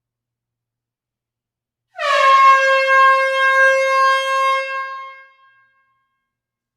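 Air horn sounding a single blast of about three seconds, starting about two seconds in; its pitch dips slightly at the onset, then holds steady before fading away.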